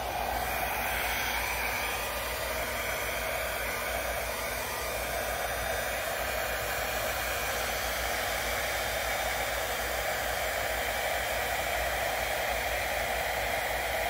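Small handheld hair dryer running steadily, its air stream pushing wet acrylic paint across a canvas in a Dutch pour.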